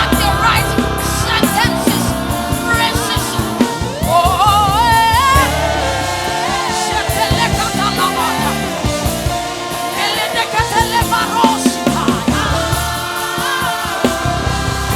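Gospel praise and worship music: a singer's voice gliding over band accompaniment with bass and a steady beat.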